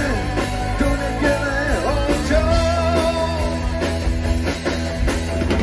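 A rock band playing live through a PA: electric guitars over bass guitar and drums, with a melodic line bending up and down above a steady bass.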